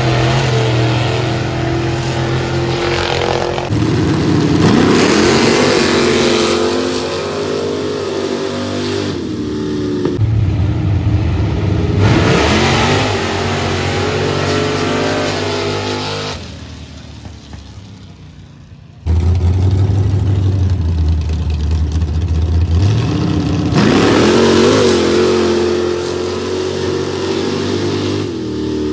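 Pickup truck engines revving hard as the trucks launch side by side down a dirt drag strip, the engine note climbing in pitch as they accelerate. Several short runs follow one another, with a quieter stretch about two-thirds of the way through.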